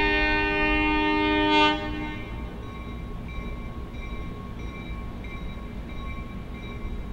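Diesel locomotive horn sounding a long chord that cuts off about a second and a half in, followed by a bell ringing steadily at about one and a half strokes a second over a low rumble.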